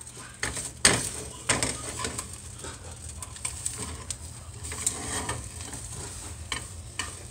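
Eggs sizzling in a frying pan while a plastic spatula knocks and scrapes against the pan, with the sharpest knocks in the first two seconds.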